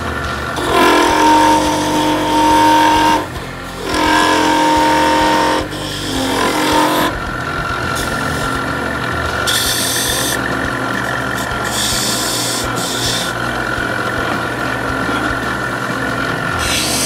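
Small lathe motor humming steadily while a hand turning tool cuts a spinning acrylic duck call insert. The cutting scrape comes in passes: the first two carry a whining tone and end about three and six seconds in, and it then runs on steadily with brief brighter bursts.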